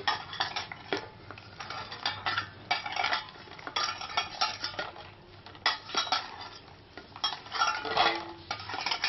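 Hands kneading soft, oiled maida dough in a stainless steel bowl. The bangles on both wrists clink and the bowl clatters in irregular bursts with each push of the dough.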